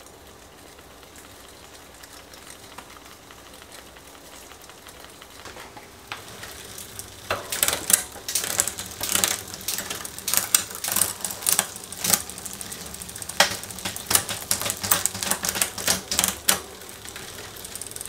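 Bicycle drivetrain turning in a repair stand, its chain just dripped with ceramic chain lube. A faint steady running sound at first, then from about seven seconds in, rapid irregular clicking and ticking from the chain, rear cassette and Shimano Sora rear derailleur, ending about a second and a half before the end.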